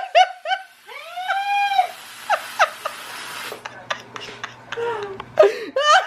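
A person laughing in short bursts, with one long high-pitched squeal about a second in.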